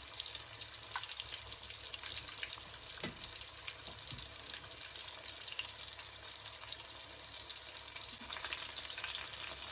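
Salmon and shrimp frying in hot oil: a steady sizzle with many small crackling pops.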